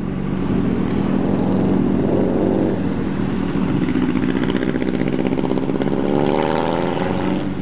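Sport motorcycles idling steadily at a stop, with another vehicle's engine revving up and pulling away through the intersection, its pitch rising and falling over the middle and latter part.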